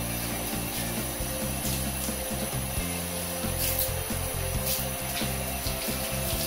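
Handheld shower head spraying water steadily over a wet cat's fur and splashing onto a tiled floor, with background music underneath.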